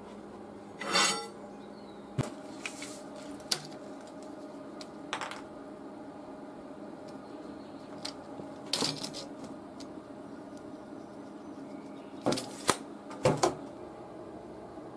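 Metal parts and tools clinking and clattering as they are handled on a workbench: scattered short knocks and brief clatters, with a cluster of clinks near the end, over a faint steady hum.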